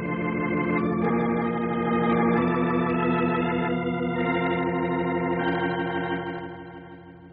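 Organ playing a short musical bridge of held chords that change every second or so, then fading out near the end: a radio-drama scene-change cue.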